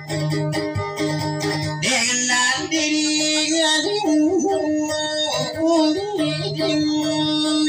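Plucked electric guitar playing a repeated figure over a steady drone; about two seconds in a singer comes in with a wavering, ornamented vocal line over it, and both carry on together.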